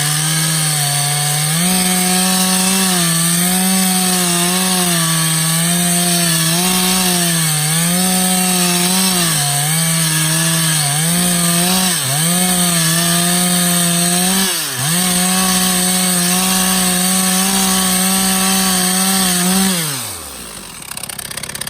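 Stihl chainsaw cutting through oak at high revs, its pitch dipping repeatedly as the chain bogs in the wood. Near the end the engine speed falls steadily and the saw stops.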